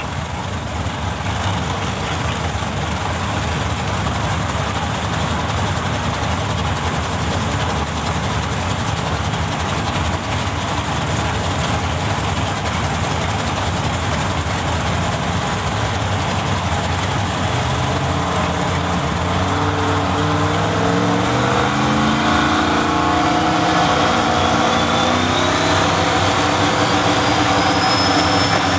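Two drag-racing Mustangs running at the starting line, one a four-cylinder turbo; from about two-thirds of the way through, an engine revs up in steps, and near the end a high whine rises steadily as the turbo builds boost for the launch.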